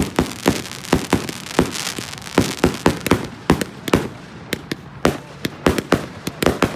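Aerial fireworks firing in rapid succession: a dense, uneven string of sharp bangs, about three a second, as shots with glittering tails lift and burst into stars overhead.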